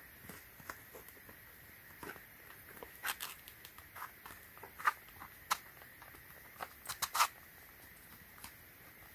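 Small metal lock picks and tension wrenches being handled and sorted: irregular light clicks and taps, busiest in the second half, with a quick cluster of sharper clicks near the end.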